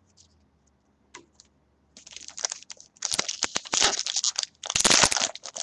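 Trading-card pack wrapper being torn open and crinkled by hand. A dense crackling sets in about two seconds in and grows louder.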